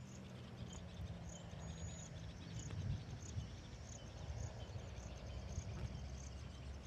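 Quiet outdoor ambience: a steady low rumble and a faint high chirp repeating about every two-thirds of a second.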